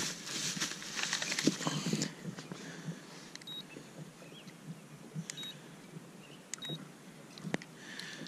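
Digital hanging fish scale giving two short, high electronic beeps about three seconds apart as its buttons are pressed. Knocks and rustling from handling the fish and gear come in the first two seconds.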